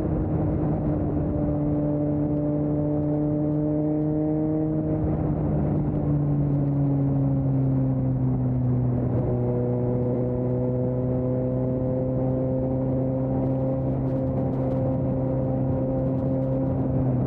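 2020 Suzuki GSX-S750's inline-four engine through a Storm aftermarket exhaust, running steadily under way. The engine note drops a little about five seconds in and holds steady after.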